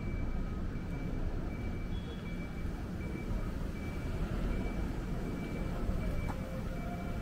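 City street ambience: a steady low rumble of vehicle traffic, with a faint high-pitched beep repeating at an even pace.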